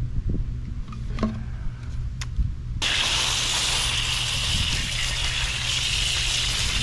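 A garden hose spray nozzle is turned on about three seconds in, giving a steady hiss of water spraying onto an outdoor AC condenser coil to rinse off foaming coil cleaner. A few light clicks come before it.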